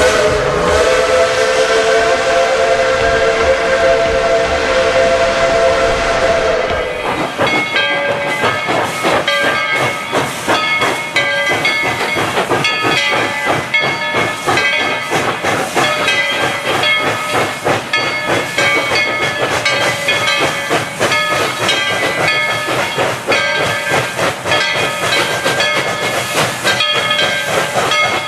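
Steam locomotive whistle blowing one long chord for about seven seconds, with steam hiss. Then it stops and gives way to the steam train's rapid exhaust chuffing and clatter, with short ringing tones coming and going.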